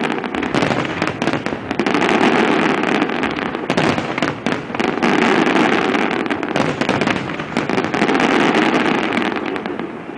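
Fireworks display: many aerial shells bursting in rapid succession, a dense crackling and popping that swells and eases every two to three seconds.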